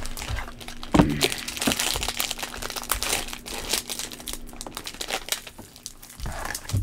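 Plastic cello and foil trading-card pack wrappers crinkling as the packs are handled and opened, with a knock about a second in. The crinkling is densest through the middle and thins out near the end.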